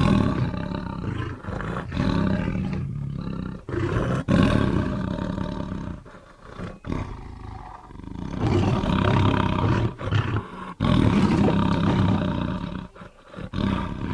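Manticore creature sound effect made from recorded big-cat and bear roars: several loud roars one after another, each a second or two long, with short breaks between them.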